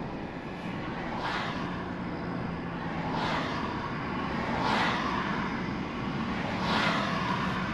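Steady engine and road noise of a moving vehicle, with four whooshes of traffic passing, about one every one and a half to two seconds.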